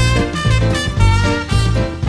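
Swing band playing an instrumental passage, sustained horn-like chords over a steady bass and drum beat.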